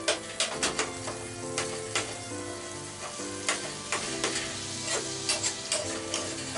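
Canned mackerel sizzling in hot oil in a nonstick frying pan while a metal spoon breaks it up, with irregular clicks and scrapes of the spoon against the pan.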